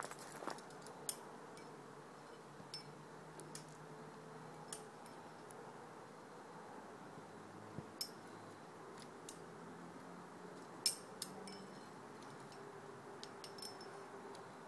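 Metal climbing gear clinking: carabiners and quickdraws on a climber's harness knocking together as he moves, in about ten sharp, scattered clicks, the loudest about eleven seconds in.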